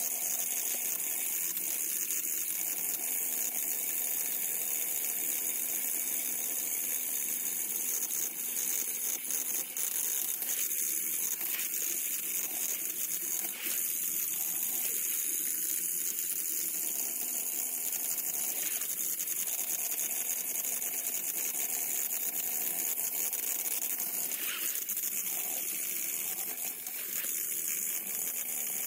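Battery-powered toy train engine motors whirring steadily, with a light gear rattle and a few faint clicks.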